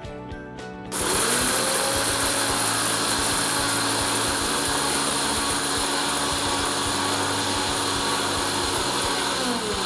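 Electric mixer grinder (mixie) running at full speed, grinding dry-roasted ajwain, black pepper, coriander seeds, cumin and toor dal into a coarse powder. It starts suddenly about a second in, runs steadily, and spins down just at the end.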